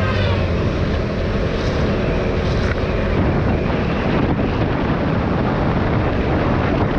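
Motorcycle riding at highway speed: a KTM Duke 390's single-cylinder engine running steadily under heavy wind rush on the action camera's microphone.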